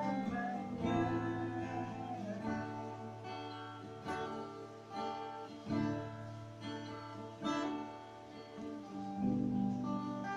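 Acoustic guitar strumming chords, a fresh strum about every second and a half.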